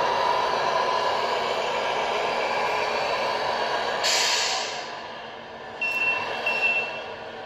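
Sound unit of a 1/14 radio-controlled Scania truck playing a steady diesel engine sound through its small speaker as the truck drives. About four seconds in, as the truck stops, there is a short air-brake hiss, followed by two short beeps.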